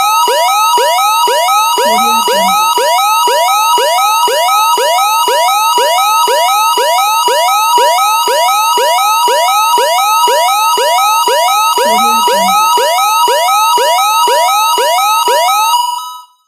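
Canadian emergency alert attention signal: a loud electronic warble of two tones near 1 kHz alternating rapidly over quickly repeating rising sweeps. It cuts off suddenly near the end.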